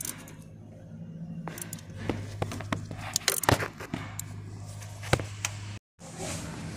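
Hand tools clinking and knocking against an AC compressor and its mounting bolts as it is fitted: a run of sharp metallic clicks through the middle, over a steady low hum. The sound cuts out briefly near the end.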